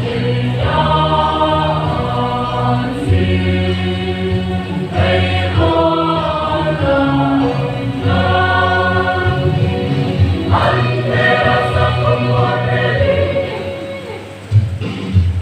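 Mixed choir of women's and men's voices singing in harmony, in long held chords phrase by phrase. The sound sinks briefly near the end, then the next phrase comes in sharply.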